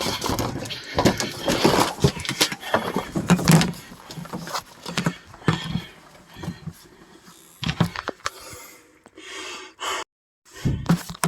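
Irregular knocks, bumps and rustling of a person moving about and handling things, with door-like thuds and no steady siren or engine underneath. The sound cuts out for a moment near the end.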